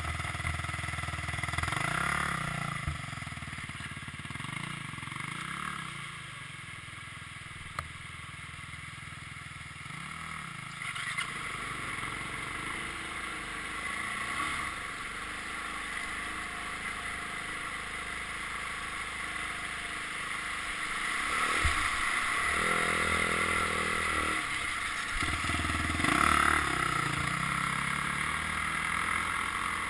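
Dirt bike engine running and revving up and down while riding, its pitch rising and falling several times, and louder about two-thirds of the way through.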